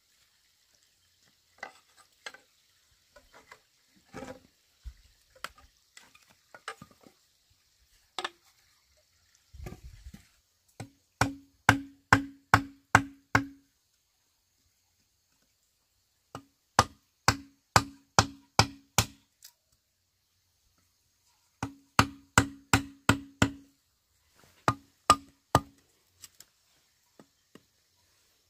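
Hammer blows driving a peg into bamboo, in quick runs of five or six strikes at about two or three a second, each with a hollow ring from the bamboo. Before them come scattered lighter knocks and scrapes as the bamboo is worked by hand.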